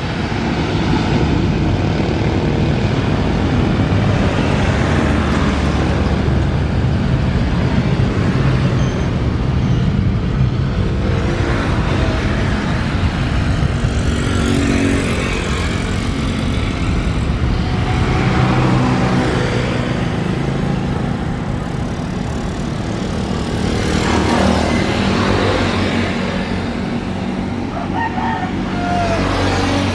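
Boeing 747-400's four jet engines at takeoff thrust: a loud, steady jet roar as the jumbo rolls down the runway and lifts off, swelling and easing a few times as it passes.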